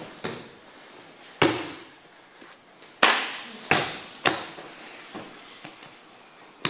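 Bodies and hands slapping and thudding onto a padded martial-arts mat as one partner is thrown and pinned in kneeling techniques. There is a sharp slap about one and a half seconds in, then three more in quick succession between three and four and a half seconds, followed by a few softer ones.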